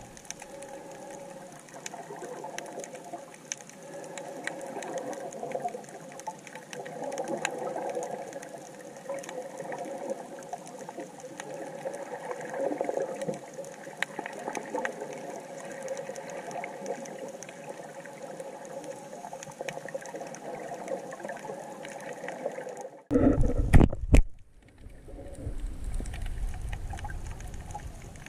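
Underwater sound of hookah divers breathing from surface-supplied air: bubbling and gurgling exhaust over a steady drone. A short, loud low rumble breaks in about 23 seconds in, and a rougher low rumbling follows.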